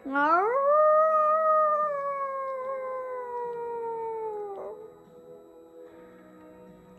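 A person imitating a wolf howl with her voice: one long howl that swoops up at the start, then slowly falls in pitch for about four seconds and breaks off with a waver.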